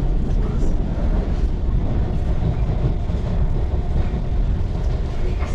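Electric commuter train running along the track, heard from inside the carriage: a steady low rumble of wheels on rails.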